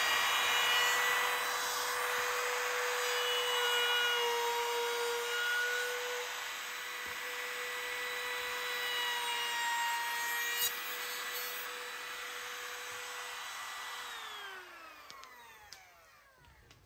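Compact trim router running at a steady high whine while it cuts a profile along the edge of a wooden window sill. About fourteen seconds in it is switched off, and its pitch falls away as the bit spins down.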